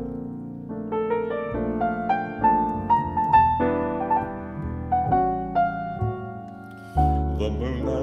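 Jazz piano playing a solo melody over chords, with upright bass underneath. The line climbs through its first few seconds and then winds back down, and a low note swells near the end.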